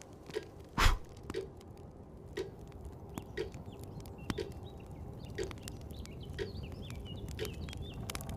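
Wood fire crackling in a fireplace, with irregular sharp snaps and one loud pop about a second in, over a clock ticking about once a second.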